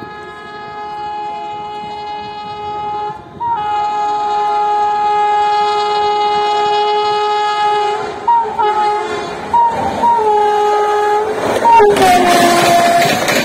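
WAP-7 electric locomotive's horn sounding long blasts as it approaches at about 130 km/h, then several short blasts. As the locomotive passes, about twelve seconds in, the horn's pitch drops and the rushing clatter of the passing train takes over.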